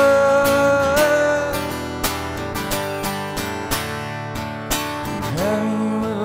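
Acoustic guitar strummed in a steady rhythm under a live song. A man's voice holds the end of a sung line for the first second and a half, and another sung note swoops in near the end.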